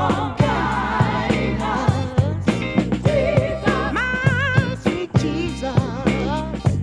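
Music with a steady beat, a bass line and singing, in a soul-funk style.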